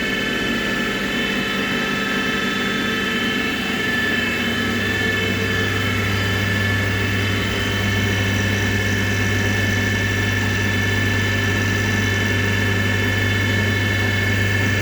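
CNC milling machine running steadily through a finishing pass on an injection mold, with a steady whine from the spindle and motors. A low hum joins about four seconds in and holds.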